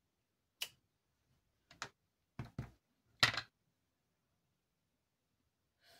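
Acrylic stamping block with a clear snowflake stamp knocking down on the ink pad and onto card over a cutting mat: about six short, sharp taps within the first three and a half seconds, the loudest about three seconds in.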